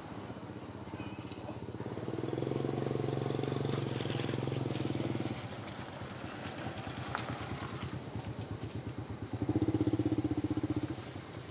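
A small engine running, growing louder twice: from about two seconds in to five, and again near the end. A steady high-pitched whine runs underneath.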